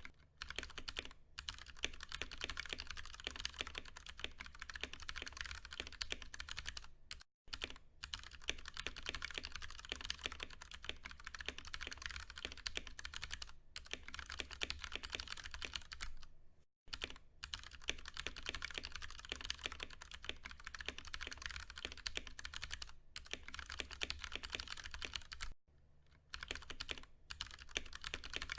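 Steady, fast typing on a Ducky One 2 Mini mechanical keyboard with tactile Cherry MX Brown switches, a dense run of key clacks broken by short pauses three times.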